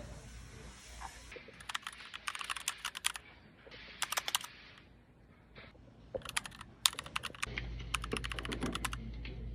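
Typewriter keys clacking in quick bursts of typing, with short pauses between the bursts.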